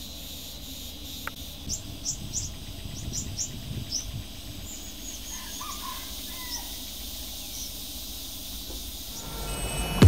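Natural outdoor ambience: birds chirping in short high calls, with a few lower gliding calls about halfway through, over a faint steady insect drone and a low rush of background noise.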